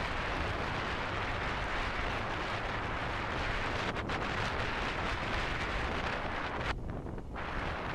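Heavy wind buffeting on the camera microphone over the low running of a Royal Enfield Himalayan's single-cylinder engine as the motorcycle rides along. The hiss drops away for about half a second near the end.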